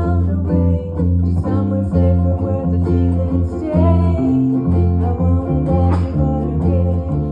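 Instrumental guitar break in a rock song: guitar chords over a steady, repeating bass line.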